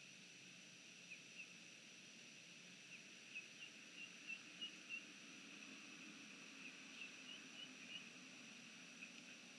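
Near silence at a pond at night: a steady faint high hum, with two runs of short, faint high chirps, one near the middle and one later.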